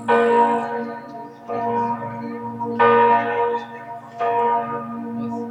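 Salzburg Cathedral's swinging church bells ringing: four loud strokes about one and a half seconds apart, each left ringing, over a steady low hum from the bells.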